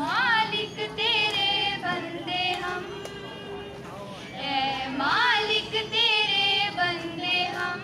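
Girls singing a Hindi prayer song into a microphone, in two long phrases of held notes with a wavering vibrato.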